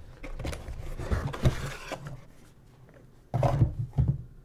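Cardboard packaging being handled: rustling and scraping as box flaps are pulled open and an inner cardboard box slides out, then two short dull thumps of the box being lifted and set against the table.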